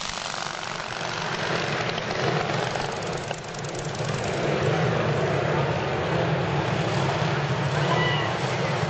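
Antique racing motorcycle engines running in a dense, unsteady drone, growing louder about four seconds in as the bikes come closer.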